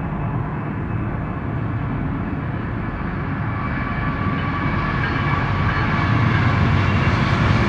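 Approaching BNSF freight train's diesel locomotives rumbling, growing steadily louder as they near.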